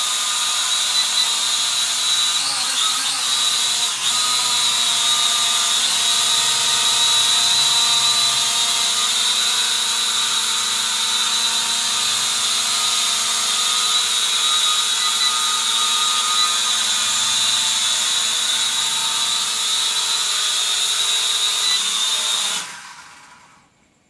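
Small E99 toy drone's motors and propellers running with a steady high-pitched whine, wavering briefly in pitch a few seconds in. The whine stops abruptly near the end.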